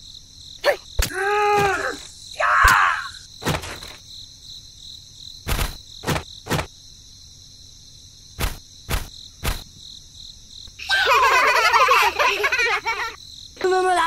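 Steady cricket chirring in the background of cartoon sound effects: short squeaky character vocalisations near the start and a busier burst of chattering voices near the end, with a series of sharp knocks between them, three of them evenly spaced.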